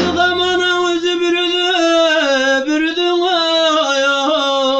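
A man's voice singing long, held notes with small wavering ornaments, the line stepping down in pitch about two seconds in.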